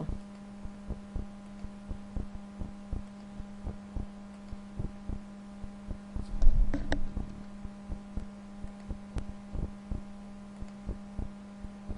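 Computer mouse clicking, a few irregular clicks a second, over a steady low electrical hum. A louder low bump comes about six and a half seconds in.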